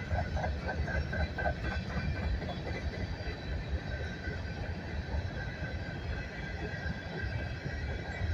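Empty coal train rolling past: a steady low rumble of the cars on the rails.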